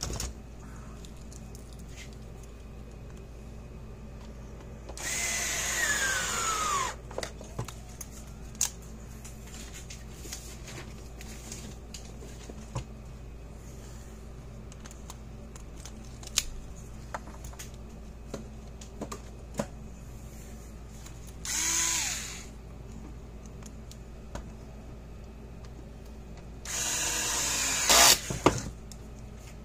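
A small handheld power tool cleaning arcing off a fence charger's terminal bolt runs in three short bursts, each winding down with a falling whine as the motor coasts to a stop. The last burst comes near the end. Light clicks and taps of handling come between the bursts.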